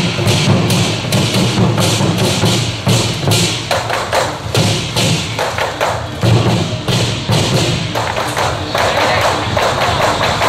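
Large Chinese barrel drums beaten with sticks in a fast, steady rhythm, with hand cymbals clashing along.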